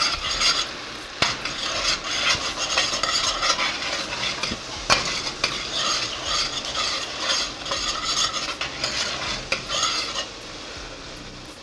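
A utensil stirring thick, simmering sauce in a stainless steel pan, a run of scraping strokes with an occasional click against the metal over a light sizzle. The stirring stops about ten seconds in.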